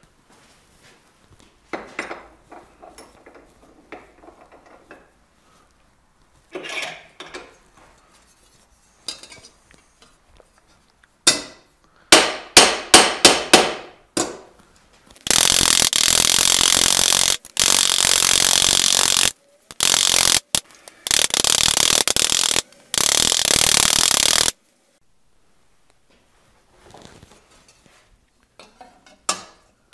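Faint handling of the sheet-steel helmet parts, then about a dozen quick hammer blows, roughly four a second, on the steel ocular piece held over a stake in a vise. A power tool then runs against the steel in five bursts of steady, high-pitched noise over about nine seconds, followed by faint handling again near the end.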